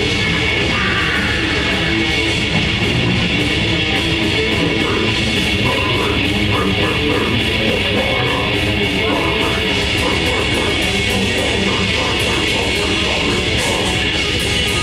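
Grindcore band playing live: heavily distorted electric guitars and bass over fast drumming, at a constant loud level.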